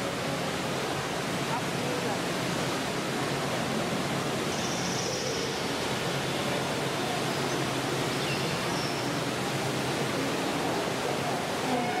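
Steady rushing of running water, like a waterfall or fountain in an indoor tropical exhibit, with faint voices in the background.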